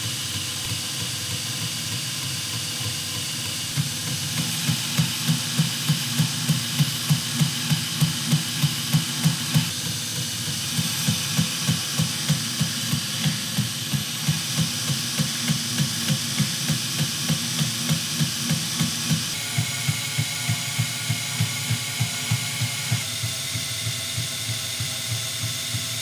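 Belt grinder with a waterfall platen running slowly while a steel knife blade is ground freehand against the abrasive belt: a steady hiss with a regular thump about twice a second. The tone shifts about twenty seconds in.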